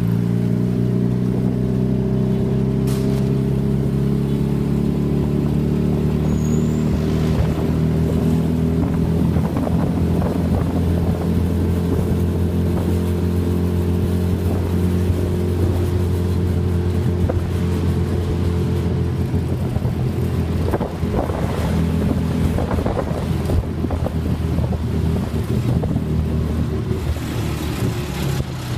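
Tuk tuk's small engine running, heard from the open passenger seat as it moves through traffic; its pitch sinks slowly over the first several seconds, then holds steady with road noise and scattered knocks.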